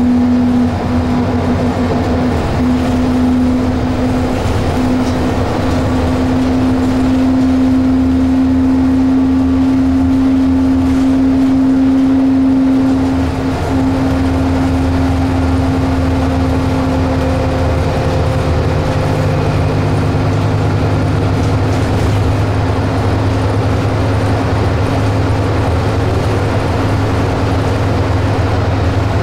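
Scania K320UB city bus under way, heard from inside the passenger saloon: its diesel engine and ZF Ecolife automatic transmission running with a steady low drone and a held humming tone. The tone breaks and the sound dips briefly about halfway through, then carries on.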